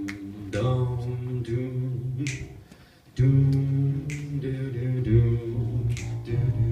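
A man's voice humming a slow, wordless line of long low notes into a microphone, with sharp finger snaps every couple of seconds keeping time. The voice breaks off briefly about three seconds in.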